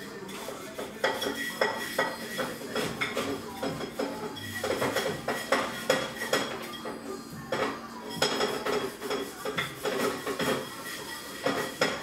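Crockery and cutlery clinking and clattering as they are handled at a kitchen counter, in many irregular sharp knocks.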